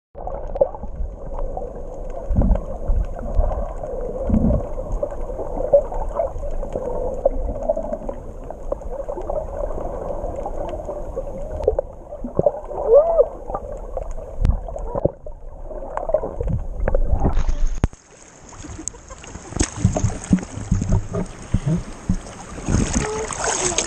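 Muffled underwater swishing and bubbling with scattered thumps as snorkellers swim, picked up by a camera under the sea surface. A little after 17 s the camera breaks the surface, and the sound turns suddenly bright, with open-air water and wind noise.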